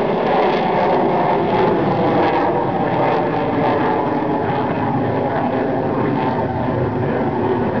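Twin General Electric F404 turbofan engines of an F/A-18 Hornet fighter, a steady jet noise as the jet flies a square loop with hard break turns.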